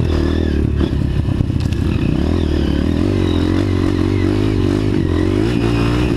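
Off-road trail motorcycle engine pulling hard in a low gear, its pitch rising and falling as the throttle works, with clattering over rough ground.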